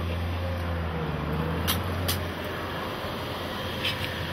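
Steady rushing hiss and low rumble of the river flowing past the bank, with a few short rustles and scrapes as coir erosion-control fabric is handled over the soil.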